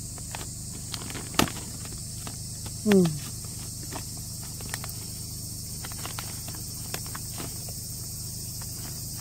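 Small scattered clicks and crinkles of gloved hands working a wire through plastic greenhouse sheeting, with one sharper click about a second and a half in. About three seconds in comes a brief falling grunt-like voice, the loudest sound. Insects buzz steadily in the background.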